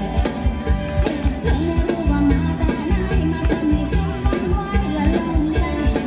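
A live Thai band playing upbeat ramwong dance music with a steady drum beat.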